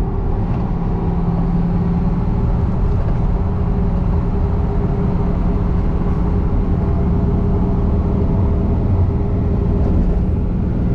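Truck engine pulling steadily in fourth gear under heavy load, towing about four tons up a hill, with road noise, heard from inside the cab.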